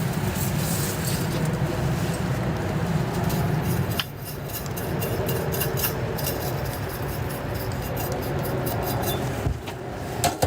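Stir-frying in a wok: a metal spatula clinking and scraping against the pan over a steady low rumble.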